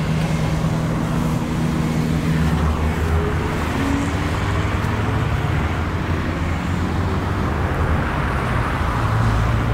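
Steady low rumble of motor traffic, with engine hum whose pitch shifts a couple of times.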